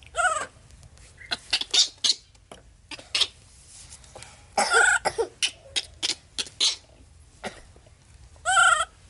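Baby macaque crying: many short high-pitched squeaks, with three longer squealing calls that rise and fall in pitch, about half a second each, typical of a hungry infant begging for its milk bottle.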